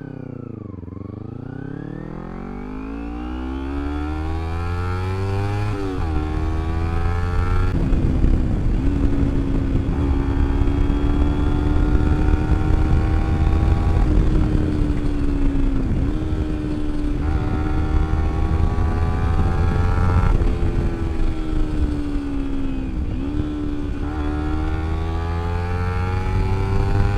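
Kawasaki Ninja 250R parallel-twin engine through a slip-on exhaust with the dB killer removed, a full bassy sound, ridden hard through the gears. The note climbs steadily and drops sharply at each upshift, about five times, over wind rush.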